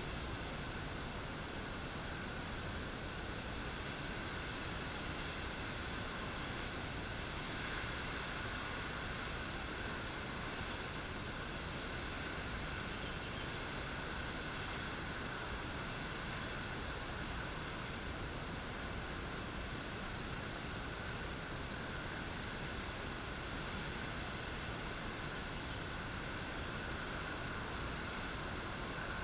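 Light rain falling steadily, an even hiss with no single events, under a constant high-pitched tone.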